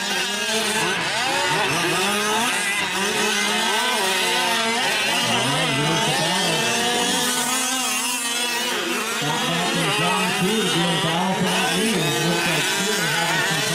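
Several 1/5-scale gas RC trucks' small two-stroke engines racing, revving up and dropping off over and over, with their pitches overlapping.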